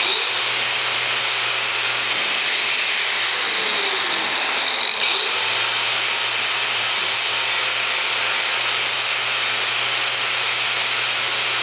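Angle grinder with an abrasive disc running steadily against a steel plate, cleaning the metal before welding. The sound dips and changes briefly just before five seconds in.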